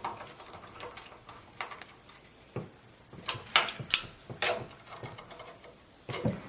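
Metal hand tools clicking and tapping against the bolt and the bandsaw's table casting while a mounting cap screw and lock nut are tightened with an Allen wrench and an adjustable wrench. A string of sharp separate clicks, the loudest bunched together in the middle.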